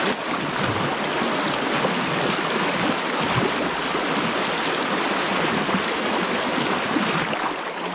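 Fast river current rushing steadily, white water breaking around a wader's legs.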